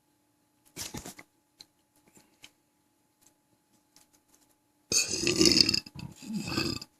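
A person burping: a long, loud belch of about two seconds, briefly broken in the middle, near the end. A short, quieter sound comes about a second in.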